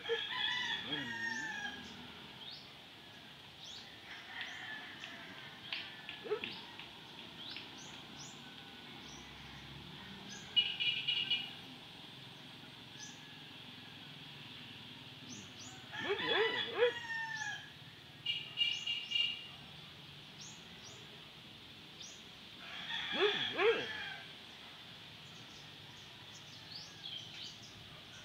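A rooster crowing three times: right at the start, again about 16 seconds in, and once more about a week's worth of seconds later near 23 seconds. Small birds chirp around it, with two short rapid trills, over a steady high insect drone.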